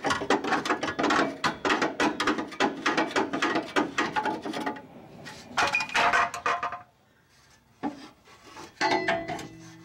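Metal parts on the underside of a truck clanking and rattling as they are pulled and worked loose by hand: a dense run of knocks for about five seconds, another burst around six seconds in, a short pause, then a few scattered knocks.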